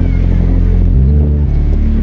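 Background hip-hop beat with a heavy bass line that steps between notes, playing without vocals between rap verses.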